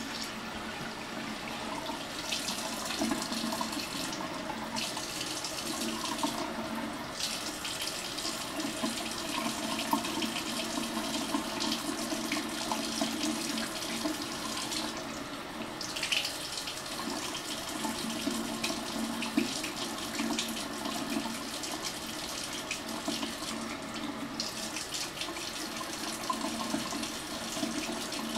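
Bathroom faucet running steadily, its thin stream splashing into the sink basin and into cupped hands. The splash changes briefly a few times as the stream shifts.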